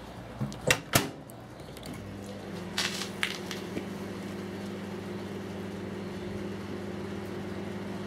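Microwave oven door shut with two sharp clicks of the latch about a second in. The oven then starts running with a steady low hum, and a few lighter clicks come near three seconds in.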